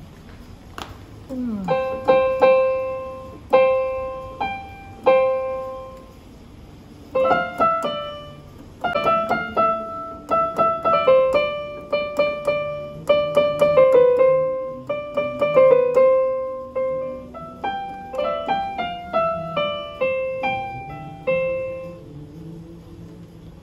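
Meike MK-812 61-key electronic keyboard playing a piano voice through its built-in speakers: a few repeated single notes, a short pause, then a simple melody, each note dying away after it is struck.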